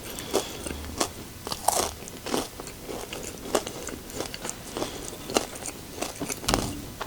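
Close-up crunching and chewing of tortilla-chip nachos with melted cheese: irregular crisp crunches a few times a second. There is one duller, deeper thud near the end.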